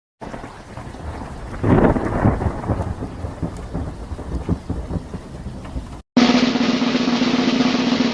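Thunderstorm sound effect: rain hiss with rolling thunder, swelling loudest about two seconds in. It cuts off about six seconds in, and a different effect with a steady low hum follows.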